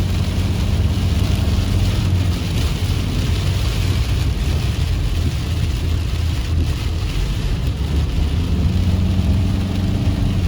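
A car driving in heavy rain: a steady low rumble of engine and tyres under an even hiss of rain and spray.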